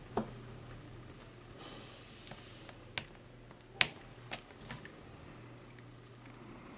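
Scattered small clicks and snips as the braided metal shield strands of a cable are trimmed back with a small cutting tool, the sharpest click a little under four seconds in. A faint steady low hum runs underneath.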